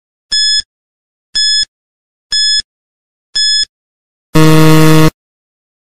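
Quiz countdown-timer sound effect: four short, high beeps about a second apart, then a louder, lower tone lasting under a second as the correct answer is marked.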